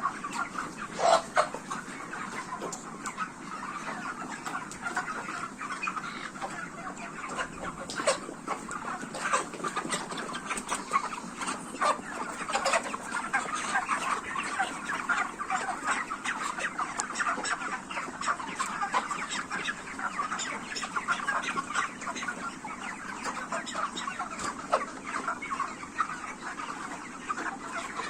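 A large flock of broiler chickens clucking and chattering continuously, many overlapping calls, with scattered sharp clicks and taps.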